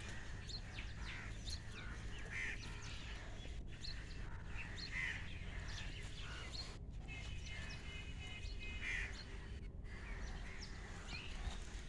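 Birds chirping: many short, scattered high calls over a steady low outdoor background noise, with a brief run of level whistled notes about seven seconds in.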